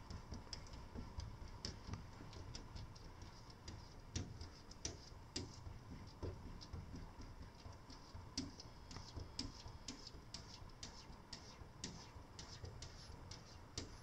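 Light, irregular tapping and clicking of a cat's paws and claws against a glass door, often several taps a second.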